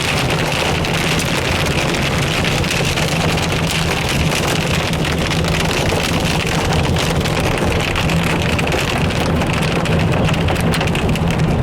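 Heavy rain and hail pelting the roof and windscreen of a moving car, a dense, steady drumming of small impacts over a constant low engine and road rumble.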